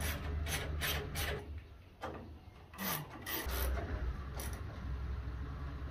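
Handle bolts on a steel tool chest being tightened with a small supplied wrench: a series of short metal scraping strokes, three quick ones in the first second or so and a few more spread out later, over a steady low hum.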